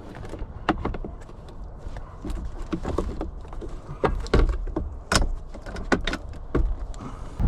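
Scattered clicks and light knocks of hands handling air filter and filter housing parts, over a steady low rumble.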